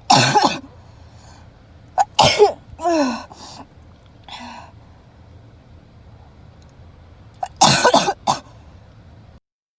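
A young woman sneezing repeatedly, set off by a nasal swab: one sneeze right at the start, two more around two to three seconds in, and another near the end.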